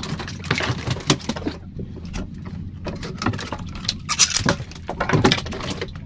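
Irregular knocks, taps and clatter of a just-caught fish and fishing gear being handled on a wooden canoe's deck, busiest about four to five seconds in.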